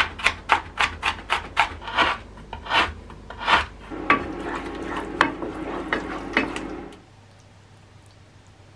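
A kitchen knife chopping onion on a wooden cutting board, quick sharp strikes about three a second that slow over the first three and a half seconds. Then a spatula stirring ground meat in a frying pan, scraping and sizzling, until it cuts off suddenly about seven seconds in.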